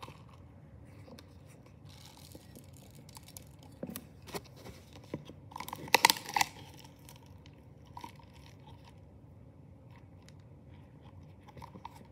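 Fingers digging through foam beads in a plastic slime tub: scattered crackling and crunching rustles, loudest in a short burst about six seconds in.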